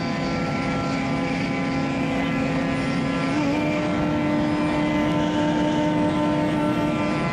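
Bansuri flute holding one long, steady note that steps up a little about three seconds in, over a steady low rumble.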